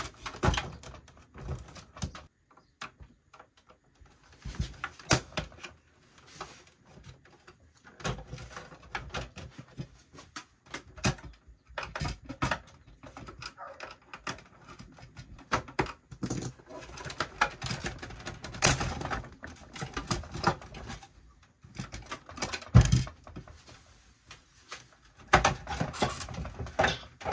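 Plastic casing of an APC Back-UPS 1400 being handled as its top cover is worked loose: irregular plastic clicks, knocks and scrapes, with one heavier knock about two-thirds of the way through.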